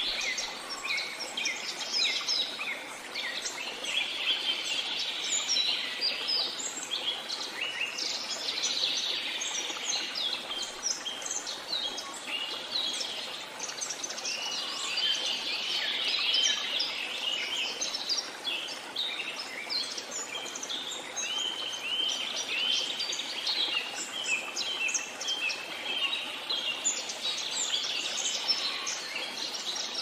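Dense chorus of many tropical rainforest birds chirping and singing, their short calls overlapping continuously, over a steady hiss of running water from a small waterfall.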